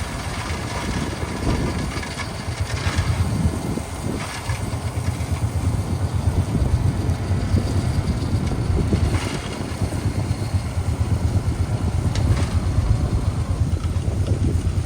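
Heavy diesel earthmoving machine engine running steadily with a pulsing low rumble, working while spreading gravel.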